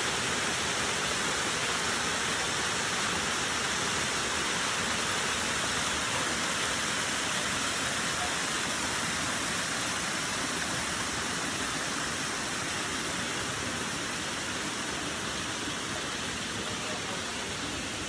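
Small waterfall cascading over rock ledges into a pool: a steady rush of falling water, a little softer near the end.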